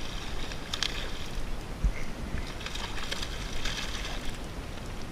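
A hooked small largemouth bass splashing at the water's surface in a few brief bursts as it is reeled in close to the bank, over a low rumble of wind on the microphone.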